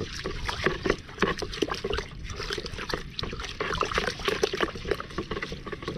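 Fish feed pellets and water being shaken together in a container: a continuous, irregular sloshing and rattling as the soaking pellets are mixed so that they soften and crumble.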